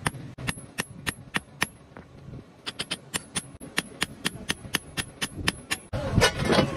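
Blacksmith's hand hammer striking a red-hot axe head on a steel anvil, steady blows about three a second that pause briefly and then come quicker around the middle. A louder rush of noise covers the strikes near the end.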